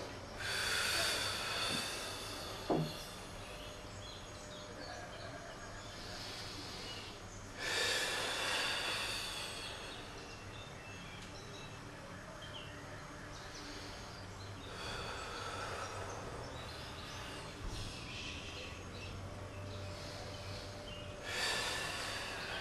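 A man's breathing during a slow Pilates roll-up on a Cadillac with a spring-loaded roll-down bar: a rushing breath about every seven seconds, four in all. One short sharp knock comes near the three-second mark, over a steady low room hum.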